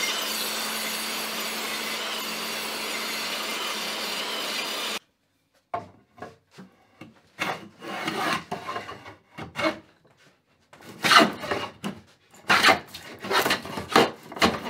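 A small table saw runs steadily with a low hum while ripping a board, and cuts off abruptly about five seconds in. Then a wooden moulding plane is pushed along a pine board in a series of short, uneven strokes, shaving wood.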